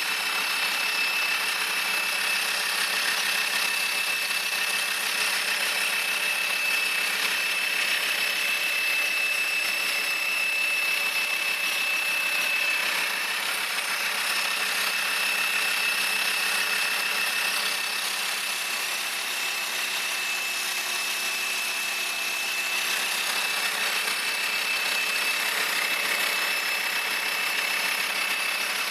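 Volkswagen Transporter T5 engine idling with a steady high-pitched whistle that holds one pitch over the engine noise.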